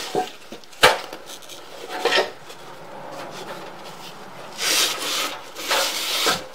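Rubbing and scraping handling noises: a sharp click about a second in, then a short scrape and two longer scraping bursts near the end.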